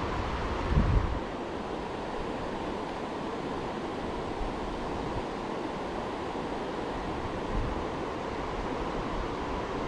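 River water rushing steadily, with wind buffeting the microphone in gusts, the strongest about a second in.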